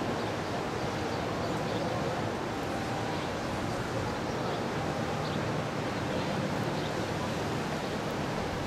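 Steady outdoor rushing noise of wind and moving water, with a faint low hum underneath.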